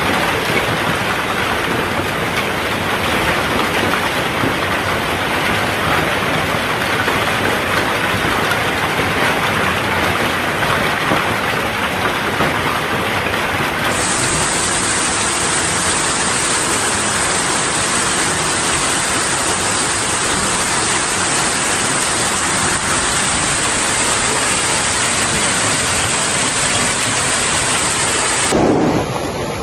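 Heavy hailstorm: hail and rain coming down hard in a dense, steady hiss. The sound changes abruptly about halfway through and again just before the end.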